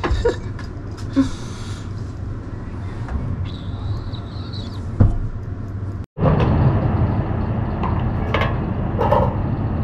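Steady low rumble of motor vehicles, cut off abruptly about six seconds in and replaced by a louder low rumble.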